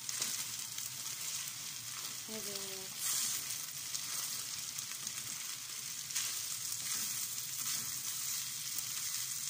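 Rice with chickpeas and pistachios sizzling in butter in a pan while being stirred with a wooden spoon: the rice is toasting before the water goes in. A steady frying hiss, swelling briefly about three seconds in and again around six to seven seconds.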